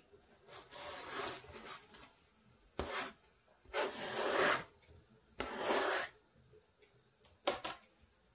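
Chopped green onion, napa cabbage leaves and garlic scraped off a flexible plastic cutting board into a pot of soup: four scraping strokes of half a second to over a second each, then a short sharp click near the end.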